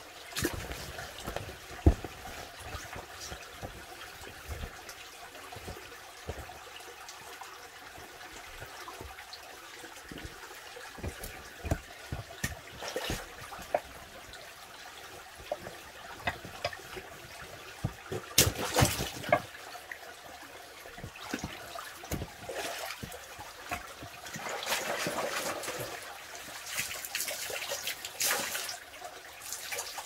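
Spring water trickling and splashing out of a rock crevice, with scattered small knocks and a few louder swells of rushing noise, one about two-thirds of the way through and another near the end.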